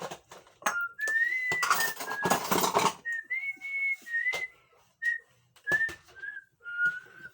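A person whistling a tune in short notes that step up and down, over the clinks and clatter of dishes being washed, with a brief rush of noise like running water about two seconds in.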